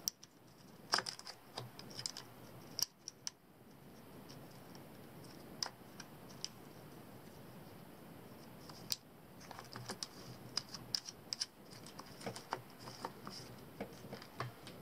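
Light clicks, taps and scrapes of a metal torch being handled and seated in a scope-mounted tri-mount ring. There is a quieter stretch in the middle, then more frequent clicks over the last few seconds.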